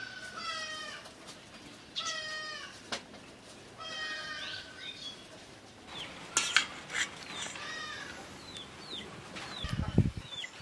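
A cat meowing over and over, one call about every two seconds, each call slightly falling in pitch. In the second half, steel spoon clinks on steel dishes as curry is served onto rice, and there is a dull thump near the end.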